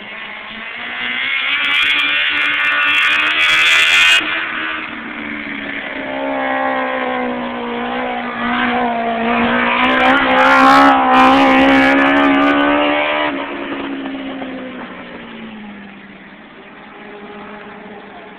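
Motorcycle-engined dwarf race cars at high revs, coming by loudly twice, about a few seconds in and again from about ten seconds in, then fading away down the track.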